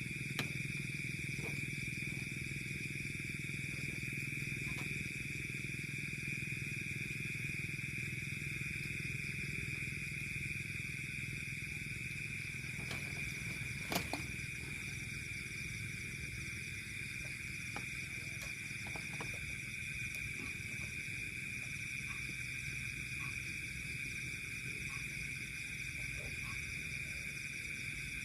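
Steady night chorus of insects, crickets trilling in one continuous high band, over a low steady hum, with a single sharp click about halfway through.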